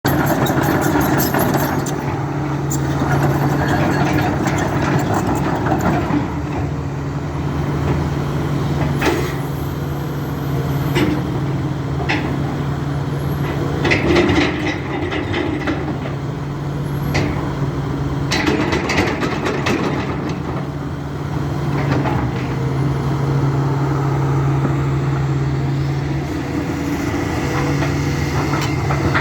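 Link-Belt 350X excavator's diesel engine running steadily, with scattered sharp metallic clanks and knocks, most of them in the middle stretch.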